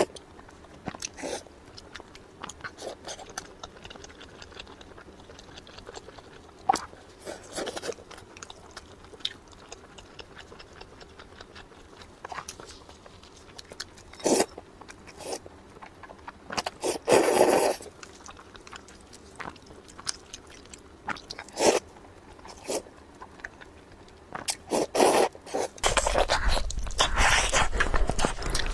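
A person eating: scattered bites and chewing with short crunches and scrapes, one longer crunchy burst around the middle. A steady low rumble comes in near the end.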